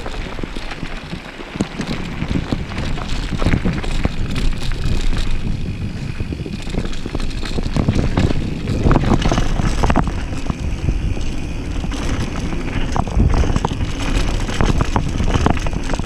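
Downhill mountain bike riding fast over dirt and gravel, its knobby tyres rolling and the bike rattling and knocking over bumps, with wind rushing over the microphone.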